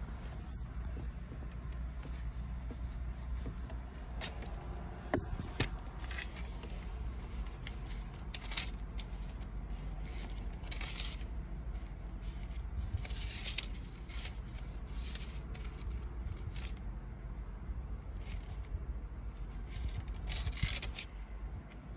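Scattered short scraping and rustling noises over a steady low hum inside a car.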